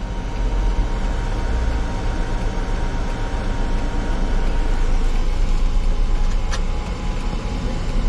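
Steady low rumble inside a camper van's cabin with the engine running.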